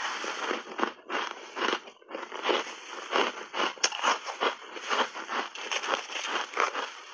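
Shaved ice coated in milk powder being chewed close to the microphone: a fast, irregular series of crisp crunches, several a second.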